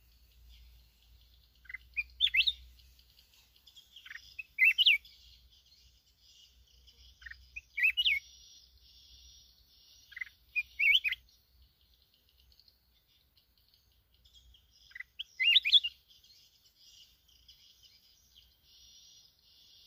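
Red-whiskered bulbul singing: five short, loud song phrases a few seconds apart, over a faint steady high chattering.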